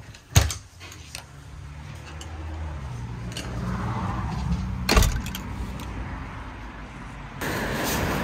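A door's nightlatch clicks sharply as it is turned, then a low rumble builds and a heavy knock comes about five seconds in as the door moves. Near the end footsteps begin crunching through fallen leaves.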